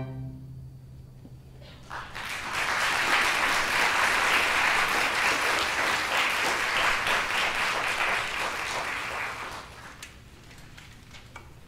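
A string orchestra's final chord dies away, and about two seconds in an audience breaks into applause. The applause holds steady for about seven seconds, then fades to a few scattered claps.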